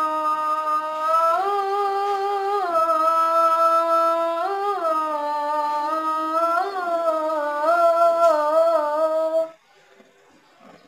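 A boy's solo voice chanting the adhan, the Islamic call to prayer: one long drawn-out phrase held on a steady pitch, stepping up and sliding back through ornamented turns, ending about nine and a half seconds in.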